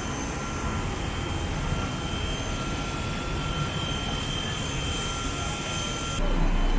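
Steady jet airliner cabin noise from a Boeing 777-200 in flight: an even rush of engine and airflow with faint steady whining tones. Near the end it switches abruptly to a louder, deeper rumble with the hiss gone.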